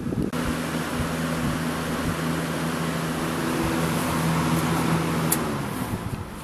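Galaxy 20-inch box fan (model 3723) running: a steady rush of air over a low, even motor hum, fading away in the last second.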